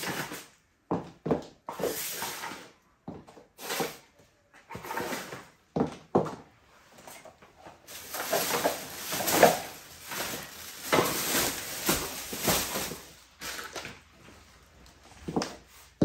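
Clear plastic bag and snack wrappers crinkling and rustling as packaging is stuffed into the bag, dense and loudest in the middle of the stretch. Before and after it come scattered short knocks and clacks, high heels on the floor and items being set down.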